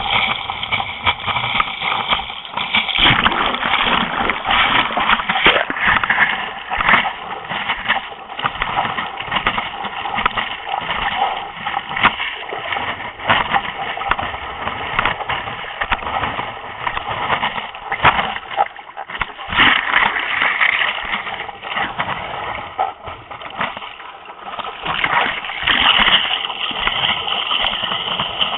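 Sea water rushing and splashing over a knee-paddled race paddleboard, heard from a camera fixed to the board's nose, with irregular sudden splashes as spray and paddle strokes hit the water.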